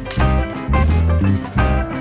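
Background music: an upbeat instrumental with a steady beat, bass and plucked guitar.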